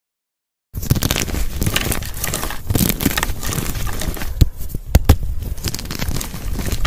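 Dyed gym chalk blocks crushed and crumbled between the hands: dense crunching and crackling that starts just under a second in, with a few sharp snaps a little past the middle as pieces break.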